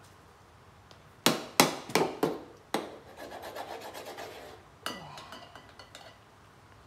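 Orange plastic child's knife knocking and scraping against a mangosteen in a bowl. Several sharp knocks come about a second in, then a rough scraping rub, then another knock with a brief ring near five seconds and a few light clicks.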